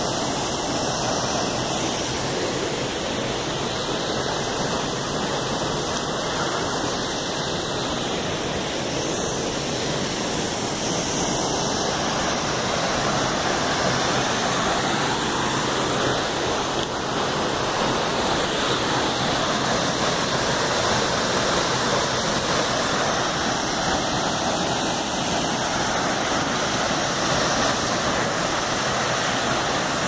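A waterfall plunging into a rock-walled pool: a steady, unbroken rush of falling water.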